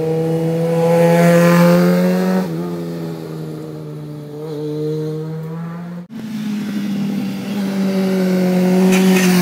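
Sport motorcycle engines running at high revs through a tight bend, a steady engine whine. The note drops about two and a half seconds in, and after a sudden break about six seconds in another bike's engine comes up.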